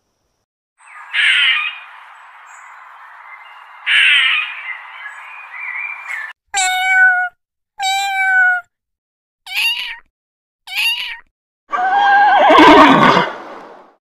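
A rushing, noisy sound with two louder swells, then a cat meowing four times in short separate calls, followed near the end by a loud horse neigh.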